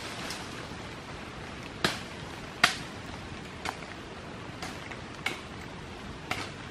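Steady rain hissing through forest, with about six sharp taps of heavy drops landing on leaves close by; the loudest tap comes about two and a half seconds in.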